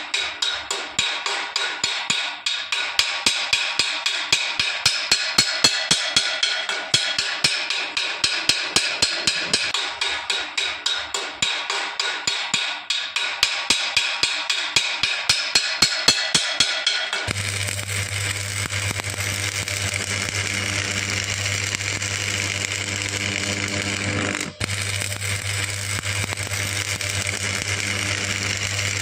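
Stick welding on thin steel: the arc crackles in rapid regular pulses, about four a second, as it is struck and broken over and over to keep heat out of the thin metal. About seventeen seconds in it changes suddenly to a steady arc, a continuous hiss with a low hum.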